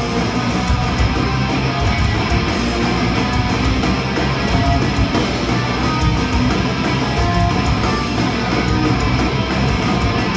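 Live rock band playing loud distorted electric guitars, bass and drums, an instrumental passage with no singing.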